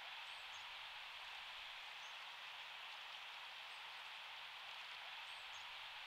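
Steady outdoor background hiss with faint, very high, short chirps of small birds about five times.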